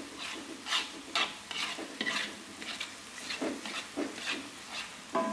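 A spatula scraping and stirring a thick spice paste sautéing in a wok, repeated strokes over a steady frying sizzle, with a short pause a little past the middle. A short ringing clink of the utensil on the pan near the end.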